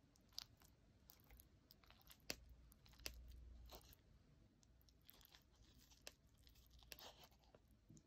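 Faint close-up eating sounds: a person chewing and crunching food, with scattered sharp clicks and a few short, scratchy bursts.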